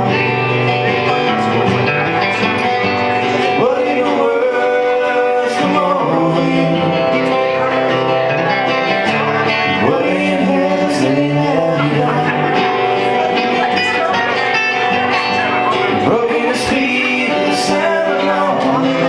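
A band playing the instrumental intro of a country-folk song, led by guitar.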